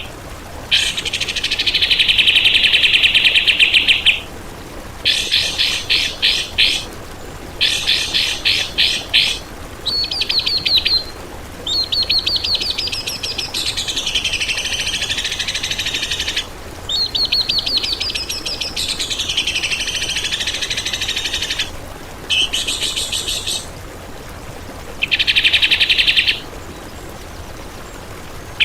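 Recorded songbird song of the kind played as training material (masteran) for cage birds: a run of loud, rapid trills and rattling phrases, some with rising sweeps, broken by short pauses.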